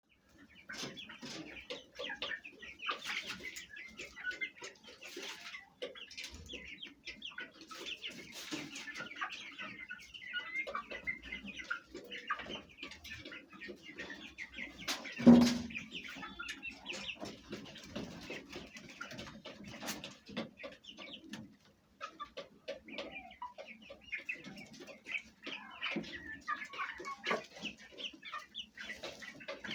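Domestic Fayoumi hens clucking together with cheeping chicks, a steady run of many short overlapping calls, with one much louder burst about halfway through.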